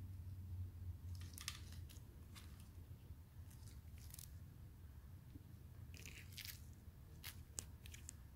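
Faint, scattered clicks and rustles of sunglasses and their packaging being handled with gloved hands, over a low steady hum.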